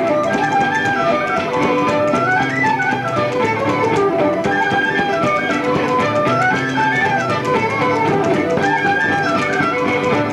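Irish traditional session music: a fast dance tune played on fiddle, with guitar chords accompanying underneath.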